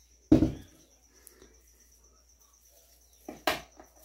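Kitchen things handled on a table while ice-pop bags are filled through a funnel. There is a heavy thump just after the start and a sharper knock about three and a half seconds in, over a faint steady high-pitched tone.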